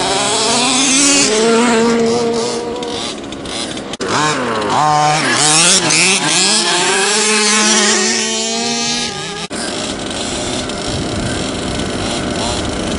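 Several gas-powered large-scale RC cars (HPI Baja and FG Marder) running together, their small two-stroke engines revving up and down, several pitches rising and falling over one another. The sound changes abruptly twice.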